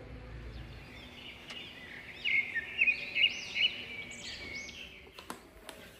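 A small bird chirping: a quick run of high, arched chirps and trills starting about two seconds in and lasting a couple of seconds, over background noise, with a few faint clicks near the end.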